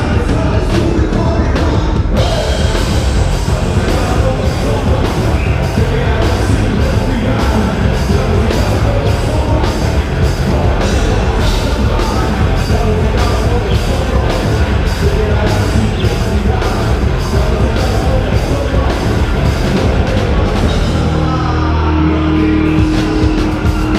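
Live rock band playing loud, heavy rock with a drum kit keeping a steady beat. Near the end the cymbals drop out and a low note is held.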